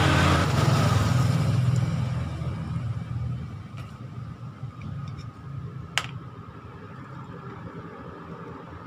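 A motor vehicle's engine rumbling past, loud at first and fading over the first few seconds. About six seconds in there is a single sharp click from the starter motor's metal parts being fitted together.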